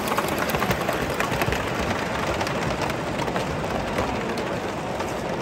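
Gauge 1 model trains running past on the track: a steady rumble of wheels on rail, with rapid fine clicking throughout.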